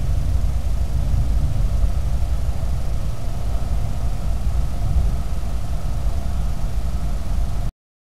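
A steady low droning hum with a fainter, even whine above it, much like an idling engine; it cuts off abruptly near the end.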